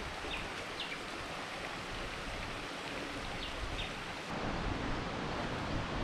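Steady rush of flowing water, with a few short, high bird chirps in the first four seconds. A little over four seconds in, the water sound turns fuller and slightly louder.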